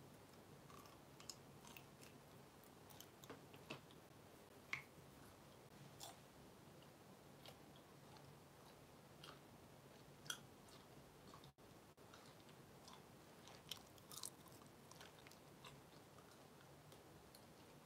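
Near silence: room tone with a dozen or so faint, short clicks scattered irregularly, the clearest about five seconds and ten seconds in.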